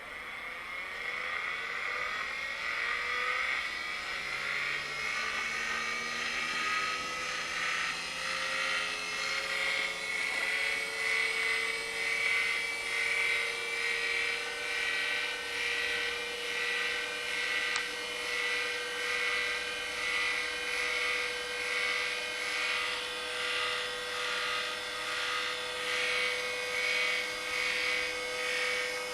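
Heavy-duty DC electric motor spinning up, its whine rising in pitch over the first several seconds, then running steadily at speed. Its loudness pulses gently about once a second.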